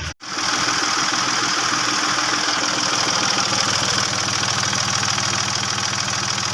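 Mercedes-Benz GL 350 diesel engine idling steadily with a fine, even diesel clatter, running after its crank-no-start fault was cured. The sound drops out for an instant right at the start.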